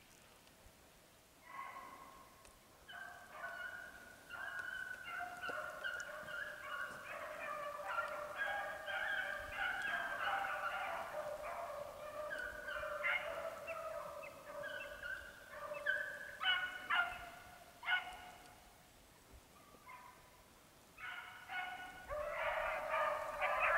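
A pack of beagles in full cry, many hounds baying at once as they run a scent line in a chase. The cry starts about a second and a half in, thins out briefly near the end, then swells louder again.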